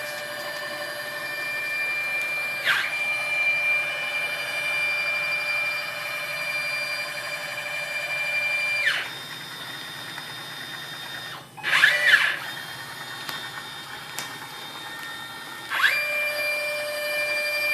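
Stepper motors of a hobby CNC machine moving its axes through a test program: a steady, high whine made of several tones that glides to a new pitch a few times as the axes speed up, slow down and change direction. About halfway through it drops out briefly and comes back in a short, louder flurry of rising and falling whine.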